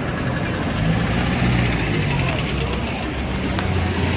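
Street noise: a vehicle engine running close by with a steady low hum, growing stronger about a second in, over people's voices.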